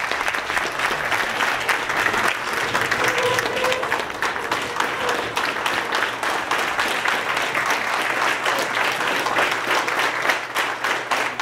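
An audience applauding, many hands clapping steadily and evenly.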